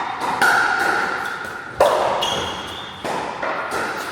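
Pickleball rally: about three sharp pops of paddles hitting the plastic ball, roughly a second and a half apart, each ringing briefly in a reverberant hall.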